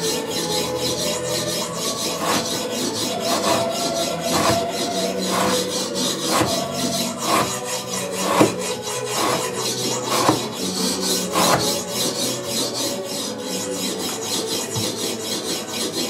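An Elmax-steel knife slicing through thick rope over and over, a continuous rasp of the edge through the fibres with a sharper stroke about once a second, as in an edge-retention rope-cutting test.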